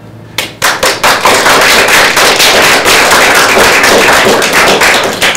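A small audience applauding, a dense patter of hand claps that starts about half a second in and stops near the end.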